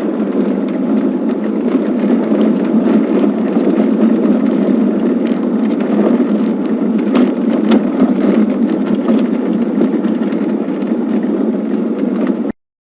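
Steady rumble of a vehicle driving, with scattered sharp rattles and clicks throughout, the kind of rattle noise an acoustic camera is used to locate in a car. It cuts off suddenly near the end.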